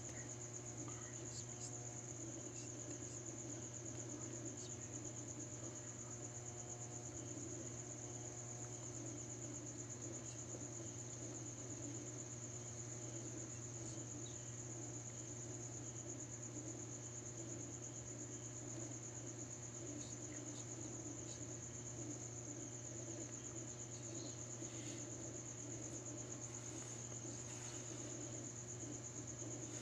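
Crickets trilling without a break, a high, finely pulsing chirr, over a steady low hum.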